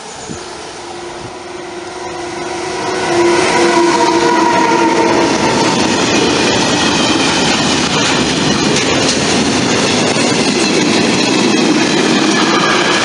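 Freight train wagons rolling past at a level crossing: a loud, steady clatter and rumble of wheels on rail with faint high wheel squeal. It swells in about three seconds in, after a quieter stretch in which an approaching electric train's steady whine is heard.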